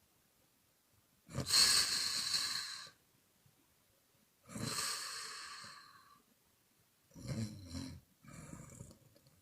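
A woman snoring with noisy exhales blown out through the mouth. There are two long, breathy snores, the first the loudest. Near the end come two shorter, quieter snores with a fluttering low part.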